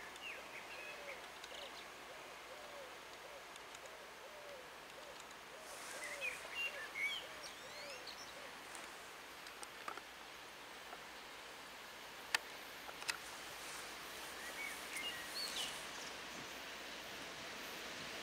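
Quiet outdoor ambience dominated by birds: a low arched call repeated about one and a half times a second for the first several seconds, then brief bursts of chirping song about six seconds in and again near fifteen seconds. Two sharp clicks come about twelve and thirteen seconds in, and a faint hiss slowly builds near the end.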